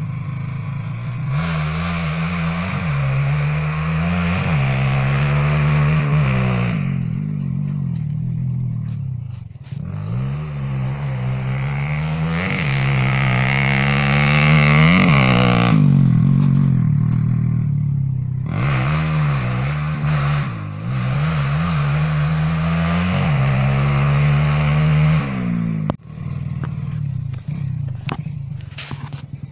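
Motorcycle engine, a Honda Supra 125 single-cylinder four-stroke bored out to 200 cc, revving hard in three long runs. Each run rises in pitch, dips and climbs again, then cuts off sharply, with a few clicks near the end.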